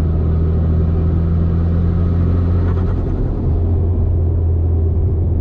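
Mitsubishi Lancer Evolution X's turbocharged 2.0-litre four-cylinder pulling in sixth gear at about 2500 rpm under light boost, heard from inside the cabin as a steady low drone.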